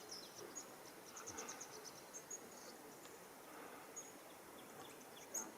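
Faint outdoor ambience of high-pitched wildlife chirping over a low steady hiss, with a quick rapid trill a little over a second in and one sharper, louder chirp near the end.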